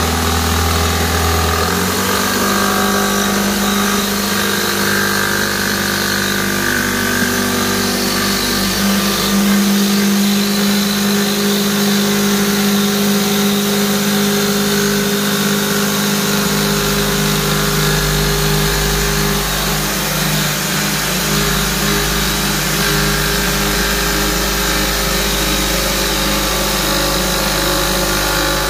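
Corded jigsaw running without a break as its blade saws through a white plastic door panel, cutting a curved opening. The motor's pitch shifts a few times as the load on the blade changes.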